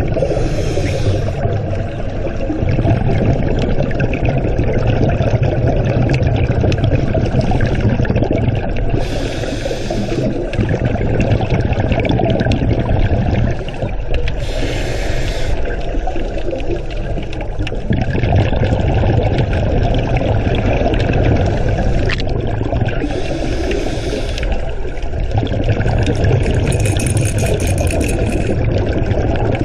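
Seawater sloshing and splashing at close range, under a heavy low rumble, with brief brighter splashes every several seconds.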